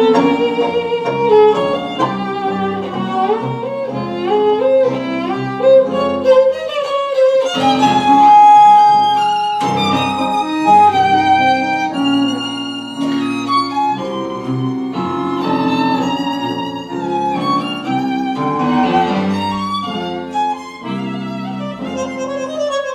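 Live tango quartet of bandoneon, piano, violin and double bass playing an instrumental tango, with singing vibrato lines over a pulsing accompaniment. A long held high note about eight seconds in is the loudest moment.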